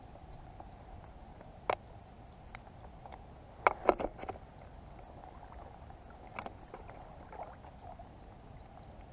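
Water lapping and splashing around an inflatable float tube, with a few short sharp splashes or knocks: one about two seconds in, a loud cluster about four seconds in, and another near six and a half seconds.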